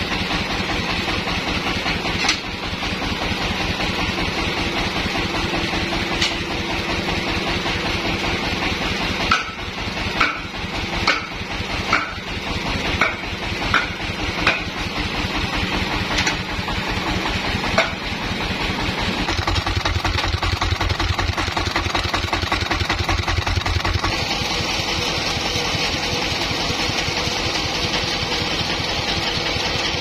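Band sawmill's engine running steadily, with a run of sharp knocks about a second apart in the middle. A deeper hum joins for a few seconds later on.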